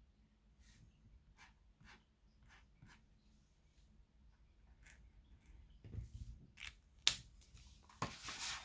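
Fine-tipped white pigment marker drawing short strokes on paper, a string of faint scratches. Near the end come a few knocks, a sharp click and a louder rustle as the sheet of paper is handled.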